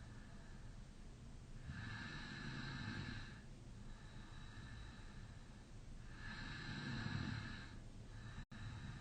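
Person snoring in deep sleep with the mouth slightly open: two long, faint snoring breaths about four and a half seconds apart. The sound cuts out for an instant near the end.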